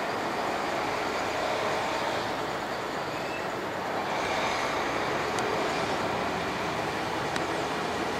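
Twin-engine widebody jet airliner climbing away after takeoff: a steady, noisy jet-engine rush that grows slightly louder about four seconds in.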